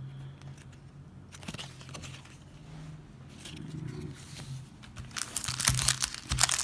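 Foil wrapper of a Topps baseball card pack crinkling and crackling loudly as it is handled and torn open, starting about five seconds in; before that only faint clicks of cards being handled. A low steady hum sits underneath.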